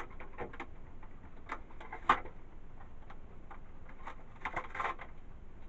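Packaging and cords being handled while unboxing a headset: scattered light clicks and ticks, with one sharper click about two seconds in and a brief cluster of rustling clicks near the end.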